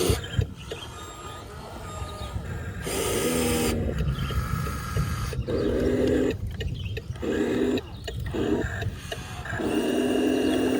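Electric drive motors of radio-controlled model construction machines whining in about five short stop-start bursts as they are driven and stopped.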